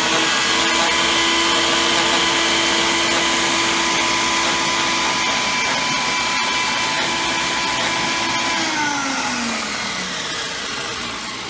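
Personal blender motor running steadily at a constant high pitch as it blitzes dry shredded coconut in its cup. About three-quarters of the way through it is switched off and its pitch falls as the blades spin down.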